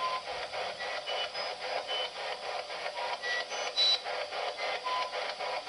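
Handheld ghost-box radio scanner sweeping through stations: a rapid, even chop of static several times a second, with short tone blips jumping between pitches, as it is held out for a spirit's answer.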